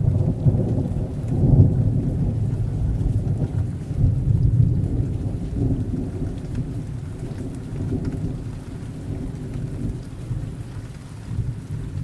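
Thunder rumbling over steady rain. A heavy low rumble peaks about a second and a half in and again around four seconds, then slowly dies away under the rain.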